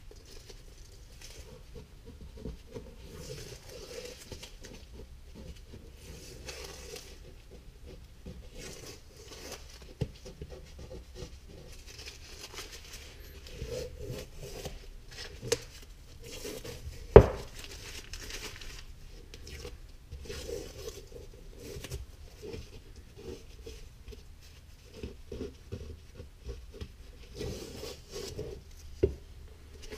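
Strips of masking tape being peeled off a wooden board and crumpled in gloved hands, in short intermittent rustles and crackles. A few sharp knocks come in between, the loudest about halfway through.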